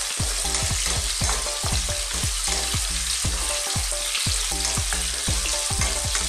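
Chopped onion, garlic and chili sautéing in hot oil in a frying pan, sizzling steadily, while a wooden spatula stirs and scrapes through them.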